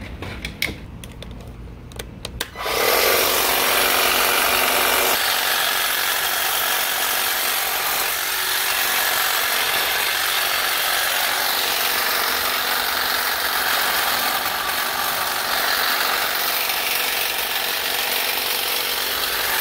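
A few light clicks, then, about two and a half seconds in, a Greenworks 40V 24-inch cordless hedge trimmer (HT40B00) starts and runs steadily, its dual-action blades reciprocating as it cuts through leafy shrub.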